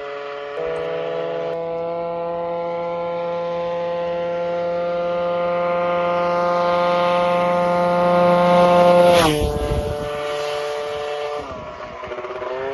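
Piaggio Zip SP scooter's two-stroke engine, fitted with a 172cc Malossi kit and a Jollymoto exhaust, held at high revs as it approaches and grows louder. It passes about nine seconds in with a sudden drop in pitch, then carries on at a lower pitch as it pulls away, the note changing again near the end.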